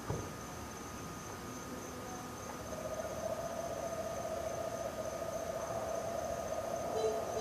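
Night-time animal chorus: a steady high insect trill, joined about three seconds in by a louder, lower, continuous pulsing trill, the croaking that the recordist takes for frogs. A short click at the start and two short low calls near the end.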